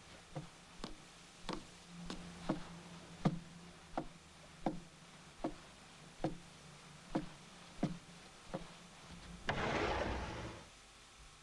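Cartoon sound effects of footsteps walking steadily, about three knock-like steps every two seconds, over a faint low hum. Near the end a sliding door slides open with about a second of rushing noise.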